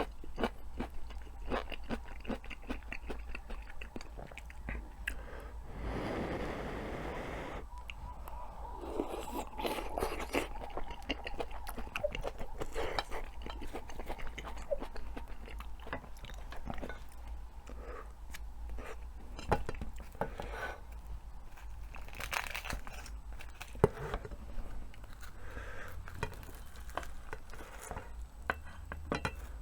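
Close-miked chewing and crunching of food in the mouth, with many small clicks and crackles and a couple of sharper clicks about twenty and twenty-four seconds in.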